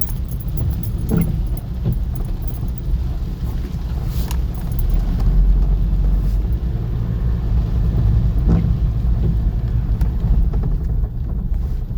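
Car driving, with a steady low rumble of engine and tyres heard from inside the cabin and a few faint knocks spaced several seconds apart.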